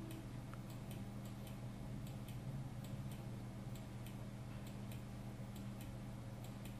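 Computer mouse clicking, short sharp clicks at an uneven pace of about two a second, over a steady low electrical hum.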